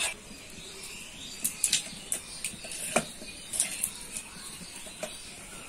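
Wood fire in a clay stove crackling, with irregular sharp clicks and knocks as firewood sticks are pushed into it, and faint high chirps in the background.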